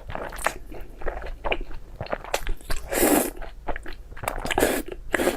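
Close-miked eating: a person chewing and biting food, a string of wet clicks and smacks with a few louder, noisier bursts about three seconds in and near the end.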